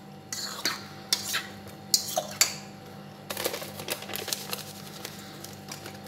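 Breaded cauliflower florets being stirred and tossed in a stainless steel mixing bowl: separate clinks and knocks against the metal, then a quicker run of small taps about three seconds in.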